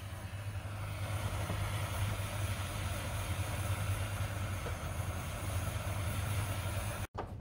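Handheld butane jet torch burning with a steady hiss as it shrinks heat-shrink tubing over a cable at an Anderson plug. The hiss cuts off suddenly near the end.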